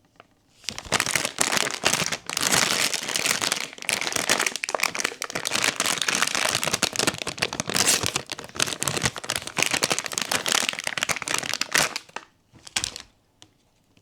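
Blind-box packaging wrapper being crinkled and torn open: dense, crackly rustling for about eleven seconds, then one short rustle near the end.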